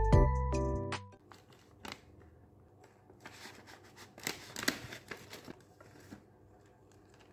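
Background music cuts off about a second in. Then a plastic packet of hard candies crinkles and rustles as fingers reach in for a sweet, with a cluster of sharp crackles near the middle.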